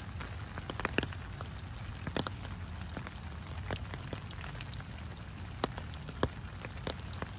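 Steady rain falling, with many irregular sharp ticks of individual drops landing close by.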